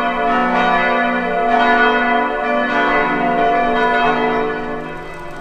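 Church bells ringing for mass: several bells pealing together, their tones overlapping and ringing on, fading out toward the end.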